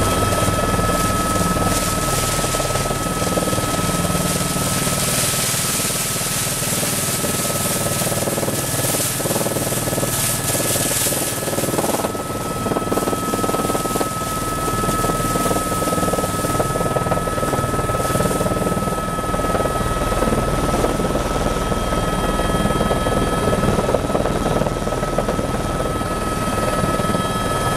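Helicopter in flight, heard from on board: steady rotor and engine noise with a constant high whine over a low rumble.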